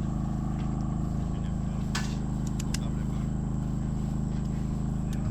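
A steady low engine-like hum, with one sharp crack about two seconds in and a few lighter clicks soon after.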